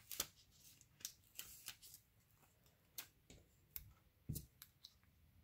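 Faint crackle and rustle of a paper sticker being peeled off its backing sheet and handled, with light clicks, and one soft thump of a wooden stamp block about four seconds in.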